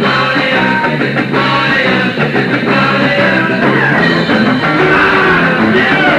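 A punk rock band playing a song live, with guitars, bass and drums. The cassette recording sounds dull, with its treble cut off.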